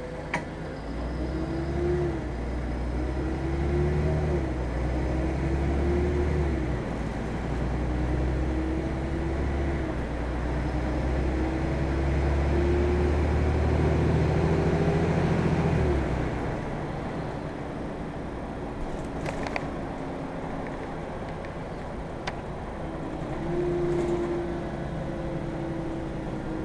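City bus engine and drivetrain heard from inside the cabin: a low rumble with a whine that climbs in pitch and drops back several times as the bus accelerates through its gears. The rumble eases about 16 seconds in as the bus coasts, and a few short clicks or rattles come near the end.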